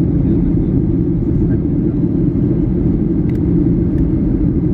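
Steady low cabin roar of a Boeing 737 in flight: engine and airflow noise heard from inside the passenger cabin. Two faint clicks come a little after three seconds in.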